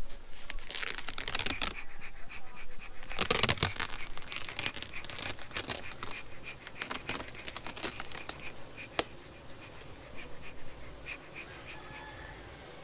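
A beehive's flexible top cover being peeled back off the wooden hive box: a run of crinkling and crackling with scattered clicks, loudest about three seconds in and thinning out after about nine seconds.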